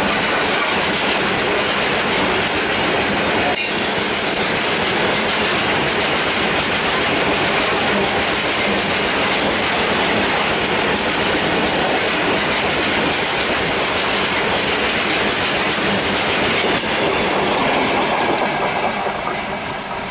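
Coal-loaded open freight wagons rolling past close by: a steady, loud clatter and rumble of wheels on the rails that fades near the end as the rear of the train passes and draws away.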